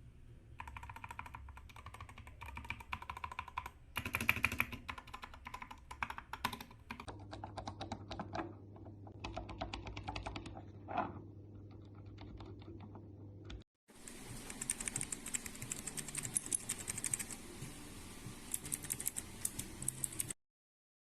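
Typing on a mechanical keyboard fitted with Outemu switches: fast runs of key clicks and clacks. After a short break about two-thirds of the way through, the keystrokes sound sharper and brighter, as from a different switch type.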